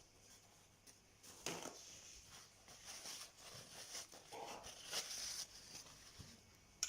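Faint kitchen handling sounds: a few soft knocks and scrapes of containers and utensils over a low hiss.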